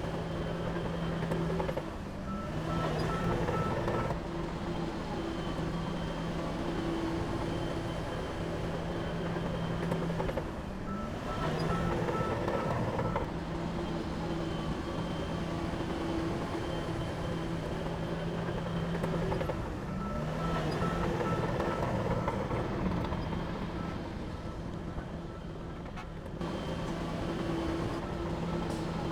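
Heavy construction machine's diesel engine running steadily, with a brief dip in its note about every nine seconds as it changes direction. After most dips, a backup alarm beeps for a second or two.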